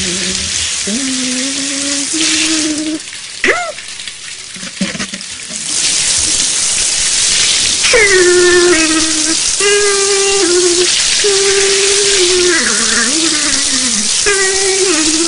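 Shower water spraying steadily, with the squeaky, wordless voices of ZooZoo characters humming and singing in held, stepping notes over it. The spray drops away about three seconds in and comes back near six seconds.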